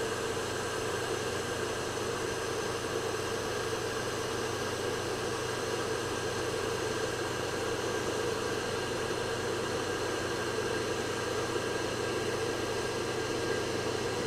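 Electric kettle heating water at about 75–80 °C, not yet boiling: a steady, even hiss as the water nears the boil.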